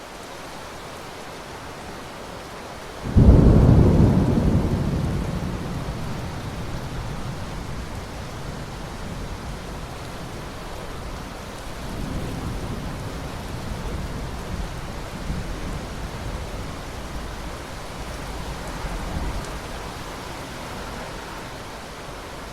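Thunderstorm: steady rain hiss with a sudden loud thunderclap about three seconds in that rolls on and fades over several seconds, followed by two weaker rumbles of thunder later on.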